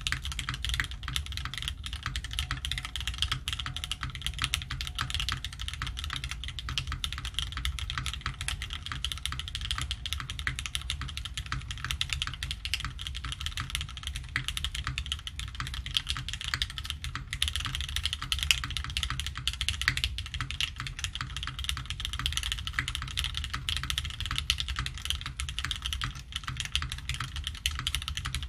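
Custom Maker Velvet mechanical keyboard being typed on fast and continuously: lubed Gateron X linear switches on an aluminium plate under GMK keycaps, a steady stream of key clacks with a deep undertone. The builder finds it too soft-sounding for Gateron X.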